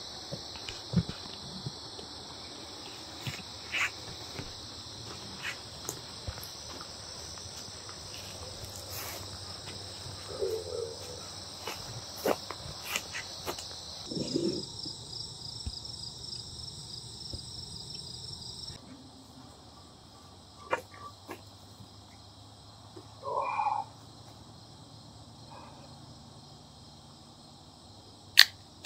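A steady high chorus of crickets or other insects trilling, which shifts abruptly twice, with scattered light ticks and rustles. A sharp click near the end is the loudest moment.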